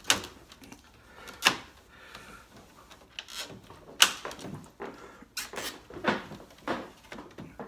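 Chrome grille inserts being pressed by hand and snapping into a Chevrolet Tahoe's front grille: a series of sharp clicks and creaks, spaced out at first and coming closer together in the second half, the loudest about four seconds in.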